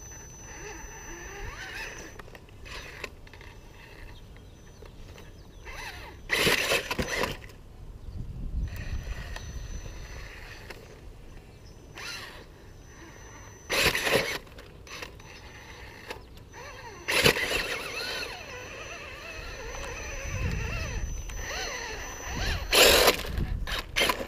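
Axial RR10 Bomber RC rock crawler with a Tekin Pro4 HD brushless motor crawling slowly up a shingled ramp: a faint wavering electric motor and gear whine with tyres scrabbling. A few times a loud, brief scrape or knock stands out as the chassis and tyres grind over the ramp.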